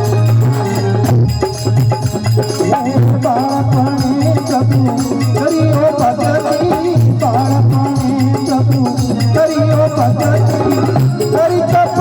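Instrumental stretch of an Indian folk devotional song (bhajan): a wavering melody over a steady low drone, with hand percussion and rattles keeping a steady beat.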